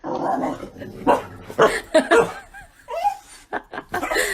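A dog barking and yelping, a string of short separate calls.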